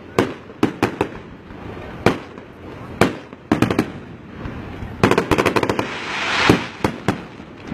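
Aerial fireworks shells bursting with sharp, irregular bangs. About five seconds in comes a quick run of crackling pops, then a swelling hiss that ends in the loudest bang, followed by two more bangs.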